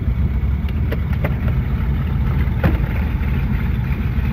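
Twin piston engines of a Cessna 310 running with a steady low drone, with a few brief clicks about one, one and a half and two and a half seconds in.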